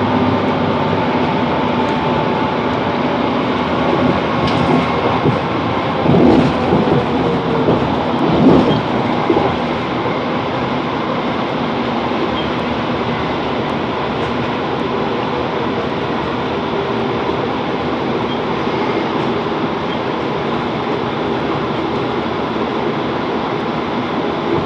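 Chiltern Railways Class 165 diesel multiple unit running, heard on board: a steady drone of engine and wheels on rail. About six to nine seconds in there is a short spell of louder clatter from the wheels over the track.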